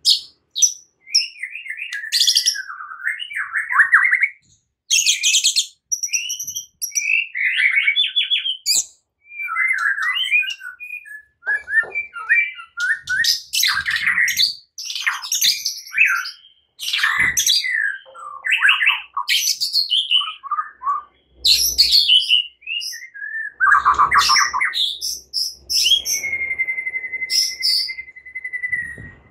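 White-rumped shama singing a long, varied song of rich whistles, rapid trills and sharp notes with hardly a pause, the aggressive 'fighting' song that keepers play to rouse other shamas. It ends with one long level whistle.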